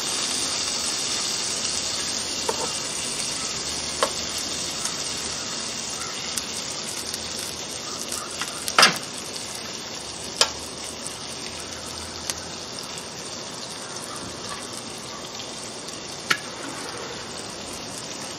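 T-bone steak sizzling on the hot ridged plate of an electric contact grill, a steady hiss that slowly fades, with a few sharp clicks, the loudest about nine seconds in.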